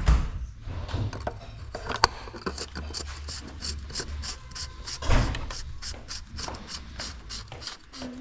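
A knock, then a run of short clicks, about three a second, with another heavy knock about five seconds in.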